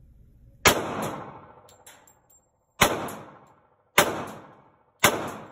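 Four single shots from a Glock pistol at an indoor range, unevenly spaced, each followed by a short echo off the range walls.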